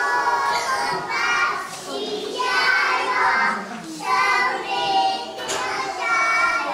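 A group of young kindergarten children singing a song together in unison, in sung phrases of about a second each with short breaks between them.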